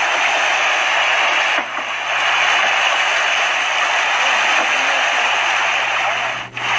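Steady, dense hiss of splashing water from a crowd of fish thrashing at the surface in a feeding frenzy. The sound briefly drops away about one and a half seconds in and again near the end.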